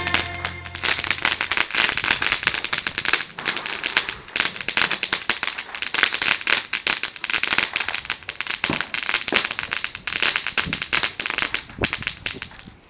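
Fireworks crackling: a dense, rapid, unbroken run of sharp pops and crackles that thins out and fades near the end.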